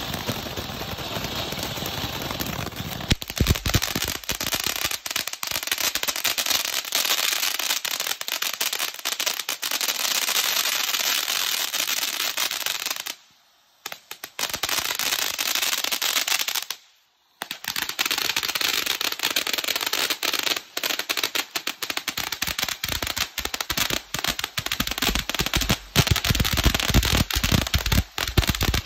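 Warrior Fireworks Fury Fountain, a ground firework fountain, spraying sparks: a steady hiss thick with crackles. It drops out briefly twice near the middle.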